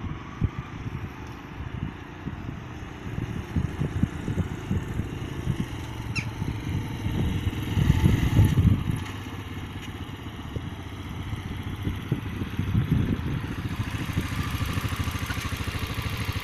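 Motorcycle engine running, louder for about a second just past the middle, then settling into an even throb near the end.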